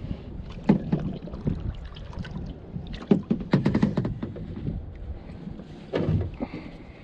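Irregular knocks and bumps against a plastic kayak hull, with the most activity about three seconds in and again near the end, over low water noise.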